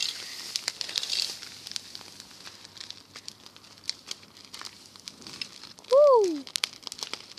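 An open pile of dry grass and straw burning, crackling with many sharp snaps and pops over a rushing hiss, with the rustle of dry straw as an armful is thrown on. About six seconds in there is a brief, loud, falling voice-like call.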